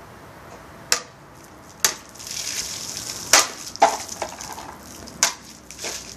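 Katana cutting water-filled plastic bottles: a series of sharp cracks as the blade strikes, with water splashing and spattering in between.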